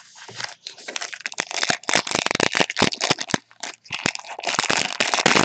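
Foil wrapper of a Panini Unparalleled football card pack crinkling in quick crackles as it is torn open by hand.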